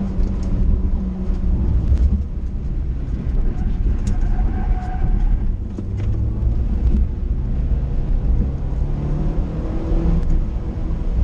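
Car engine running with heavy low road rumble, its pitch shifting up and down as the car drives.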